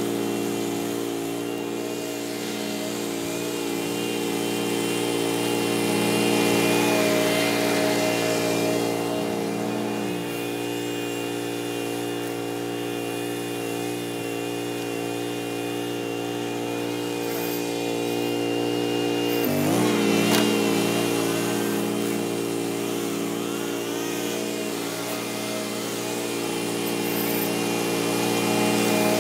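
Commercial walk-behind lawn mower engine running steadily at mowing speed, its pitch dipping briefly and climbing back about two-thirds of the way through. A string trimmer runs faintly at times behind it.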